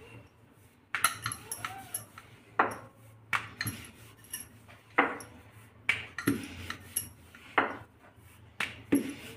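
Wooden rolling pin rolling out puri dough on a granite counter: a run of short clicks and knocks against the stone, about one every half second to second, some with a brief ringing clink from bangles on the wrist.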